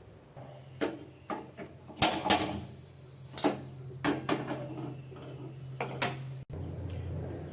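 Kitchen utensils knocking and clattering: about eight sharp, irregular knocks and clinks over a low steady hum.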